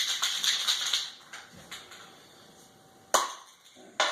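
Spray paint can being shaken, its mixing ball rattling, for about the first second. Then two sharp knocks, about a second apart.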